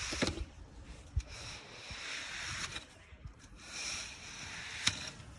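Wet concrete being worked by hand tools, an uneven scraping and squelching with a few sharp knocks.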